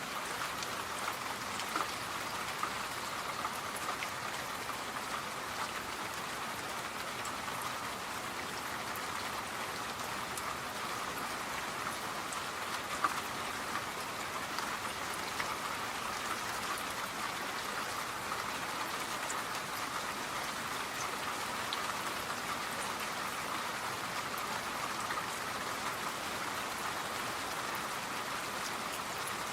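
Steady rain falling: an even, unbroken hiss with scattered individual drops ticking.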